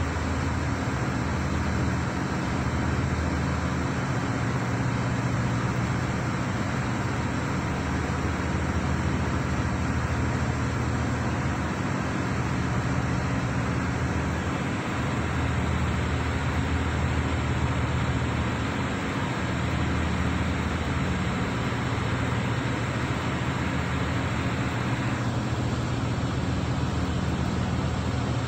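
Steady hum of a ship's running diesel generators and engine-room machinery: several low held tones under an even hiss. The hiss thins slightly near the end.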